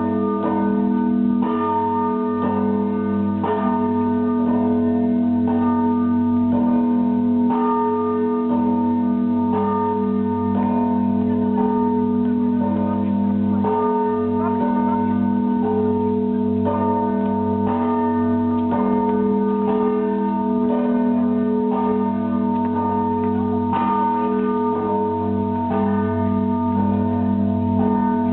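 Monastery church bells of the Russian Orthodox kind rung together in a continuous peal: many bells of different pitches sound at once, struck afresh about every second or two, their tones ringing on between strikes.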